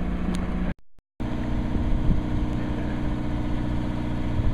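Fishing boat's engine idling with a steady drone, cut off for a fraction of a second about a second in.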